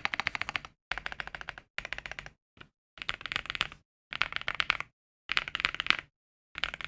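Typing on a mechanical keyboard with lubed frankenswitches (Holy Panda X housings and springs with Coffee Chip stems, tactile) in a foam-dampened Star75 board. Short bursts of fast keystrokes, each under a second, with gaps of dead silence between them.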